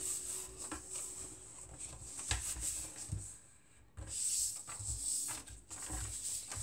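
Hands sliding and pressing a glued paper cutout flat onto a sheet of paper on a wooden table: soft paper rubbing and rustling, with a few light taps.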